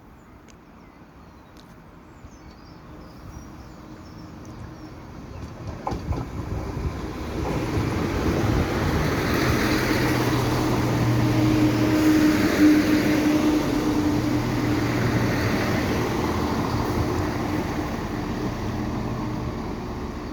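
A train approaching and passing, growing louder over about ten seconds with a steady low hum and rail noise, then slowly fading.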